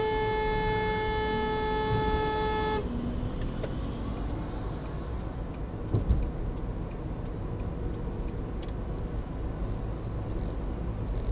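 A car horn blown once and held for nearly three seconds, then cut off, followed by steady road noise from a moving car with a single thump about six seconds in.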